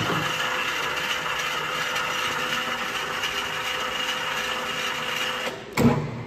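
LeBlond Regal Servo Shift lathe headstock running under power, a steady gear whine with a high-pitched tone over it. Near the end there is a sudden clunk and the machine runs on more quietly as the servo shift changes spindle speed on the go.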